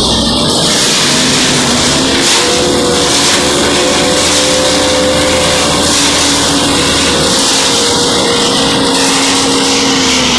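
Ajax 4000 self-loading concrete mixer's diesel engine running loudly up close, with a steady droning hum.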